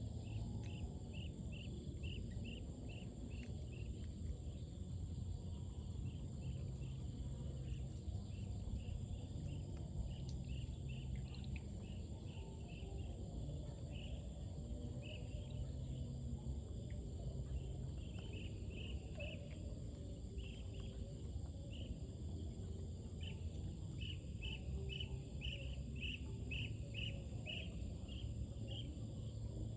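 Outdoor ambience of insects chirping in quick repeated trains, heaviest in the second half, over a steady low rumble and a constant high thin whine.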